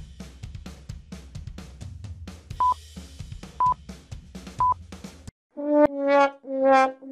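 Background music with a steady drum beat, over which three short high beeps sound about a second apart, like a film-leader countdown. The music then cuts off, and a comic brass 'wah-wah' sting of slightly falling notes begins, its last note held.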